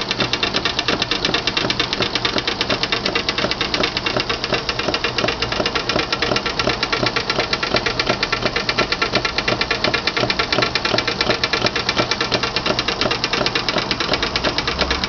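Antique miniature vertical steam engine running steadily on live steam, with a rapid, even mechanical beat. It knocks a little: the worn engine needs a complete mechanical overhaul.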